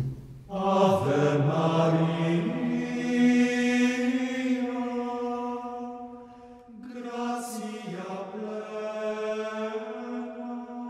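Slow chanting on long held notes, sung in two long phrases with a short break a little past halfway.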